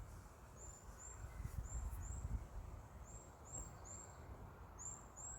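Wind rumbling on the microphone, with a small bird repeating short, very high chirps, often in pairs, about two a second.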